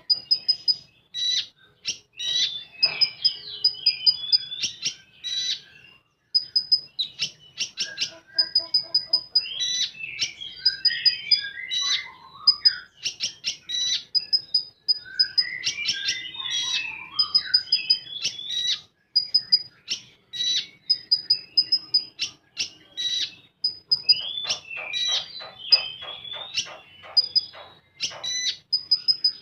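A konin songbird singing a long, fast burst song. Short high pips repeat with rapid clicking trills and twisting warbled phrases, and a dense rattling trill comes near the end.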